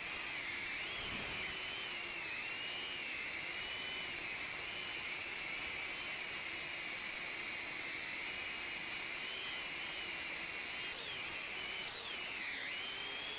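Ducted drone's electric motors and propellers whining over a steady hiss, the pitch wavering up and down as the throttle changes, with a sharp dip near the end.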